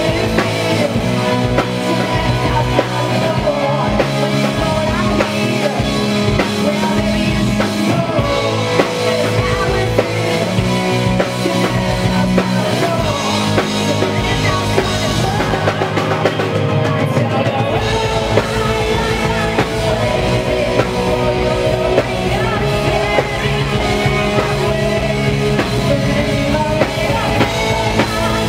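A metal band playing live: drum kit and electric guitars over bass and keyboard. The lowest notes drop out for a couple of seconds past the middle, then come back.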